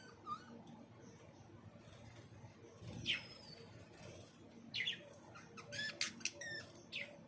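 Aviary birds giving scattered short chirps over a faint background: a single falling chirp about three seconds in, then a quick run of calls between about five and seven seconds.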